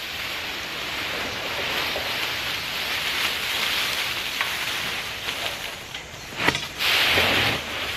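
Dry fallen leaves rustling steadily as they pour into a metal trash can lined with a plastic bag, with a louder rustle near the end as the last of them are shaken out.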